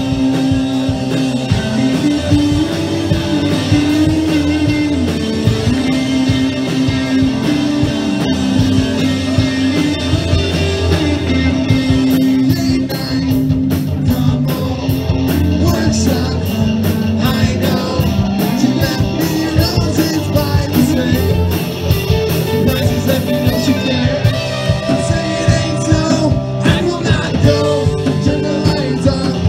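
Live rock band playing loudly: distorted electric guitars over a driving drum kit, with quick steady cymbal strokes partway through.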